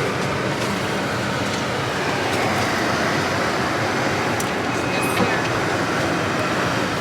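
Steady wind noise on the microphone in a blizzard, an even rushing that does not let up.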